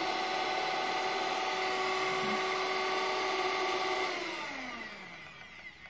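Kaisa Villa electric hand mixer running with no beaters fitted: a steady motor whine that, about four seconds in, falls in pitch and fades as the motor winds down.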